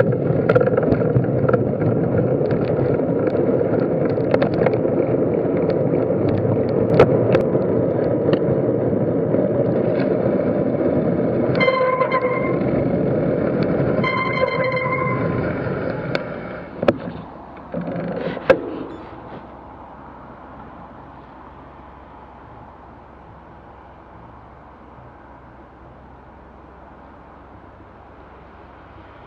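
Wind and road noise on a bicycle-mounted camera while riding on a wet street, with a horn sounding two short toots about twelve and fourteen seconds in. A few knocks follow, then the noise drops to a faint steady hum as the bike comes to a stop.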